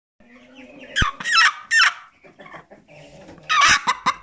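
Hens clucking: a low held note at the start, then a run of loud, pitch-bending clucks about a second in and another loud call near the end. A short knock sounds about a second in.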